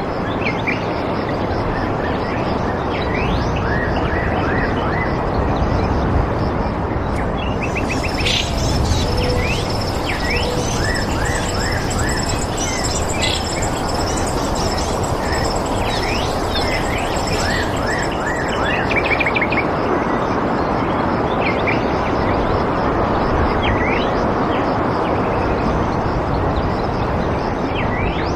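Birds chirping and calling, many short rising and falling notes, over a continuous rushing background. A thin, high, steady tone joins about eight seconds in and fades out about ten seconds later.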